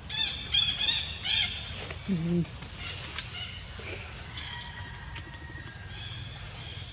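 Four loud, harsh animal calls in quick succession over the first second and a half, then fainter chirping.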